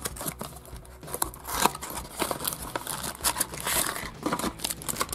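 Cardboard surprise box being torn open and crinkly plastic packets being pulled out of it: a run of irregular crackles and rustles.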